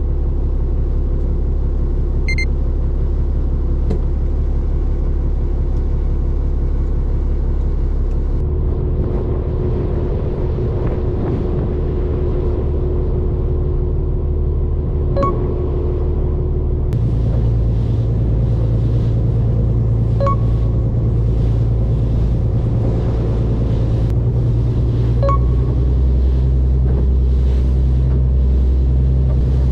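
Fishing boat's engine running steadily under way, a loud low drone that shifts its tone twice. Short beeps about every five seconds in the second half.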